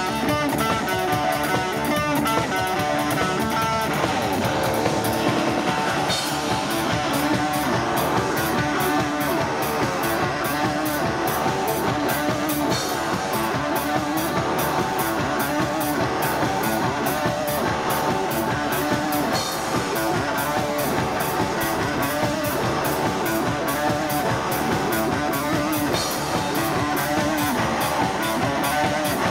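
Live rock band playing with guitar and drum kit; a steady cymbal beat comes in about six seconds in over the guitars.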